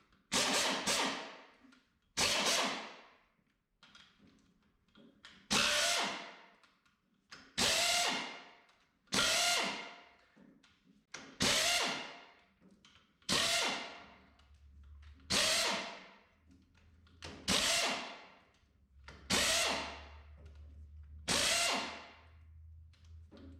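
Pneumatic air tool run in short bursts, about eleven times, roughly every two seconds, loosening the bolts on an IH 140 touch control housing.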